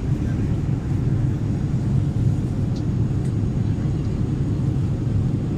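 Steady low drone of an airplane's cabin noise, heard from inside the cabin.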